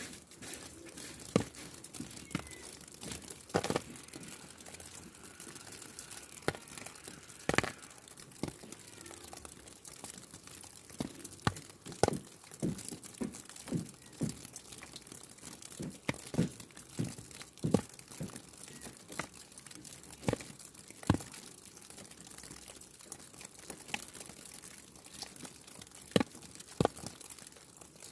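Falling snow: a steady hiss with irregular ticks and crackles scattered through it as the snow lands.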